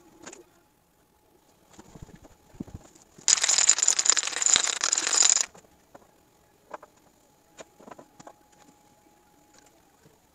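An aerosol can of corrosion treatment spraying in one hissing burst of about two seconds, followed by a few light taps and clicks of hand work on the metal.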